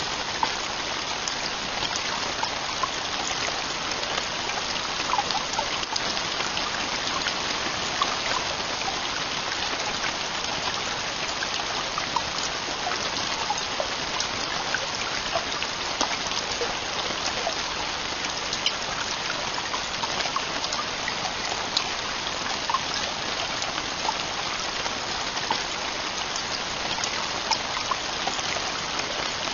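Steady heavy rain: a dense, even hiss with many separate drops ticking through it.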